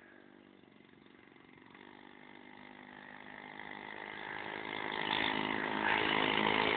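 Small single-cylinder lawn mower engine on a home-built minibike, running and growing steadily louder as it approaches from near silence.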